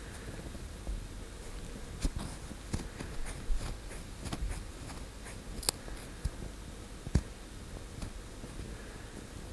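Close-miked ear cleaning: an ear pick scraping and clicking against the skin of the outer ear. The clicks come at irregular intervals, the sharpest one a little before six seconds in and another near seven seconds.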